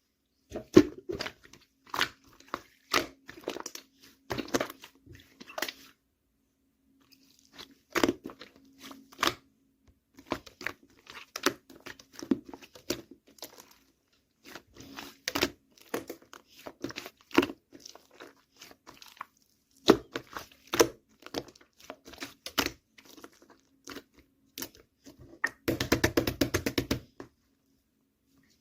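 Slime being squeezed and pressed by hand, making irregular sticky clicks, pops and crackles, with a quick dense run of pops near the end.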